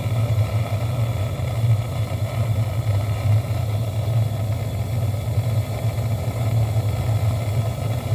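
Steady low mechanical hum, running unchanged throughout, with a fainter rushing noise above it.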